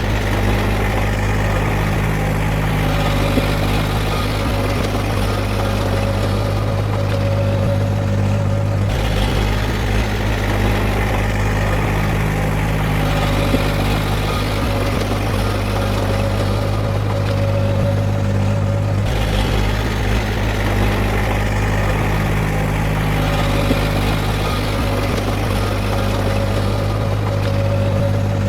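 Heavy diesel engine of earthmoving machinery running steadily with a deep, even drone; the sound changes abruptly about nine and nineteen seconds in.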